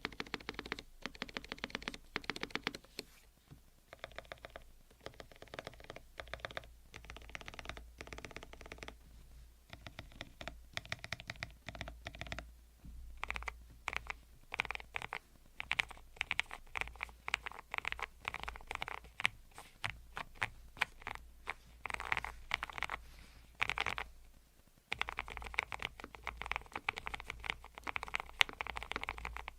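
Typing on an ATK YOGO75 PRO full-aluminium low-profile mechanical keyboard with linear switches: fast runs of soft keystroke clicks, broken by a few short pauses.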